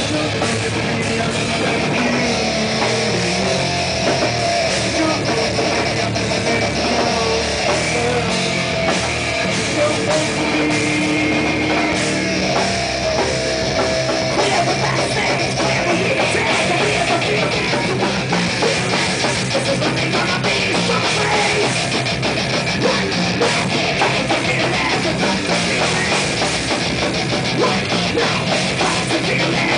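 Heavy metal band playing: fast drum kit with cymbals under electric guitar, loud and without a break.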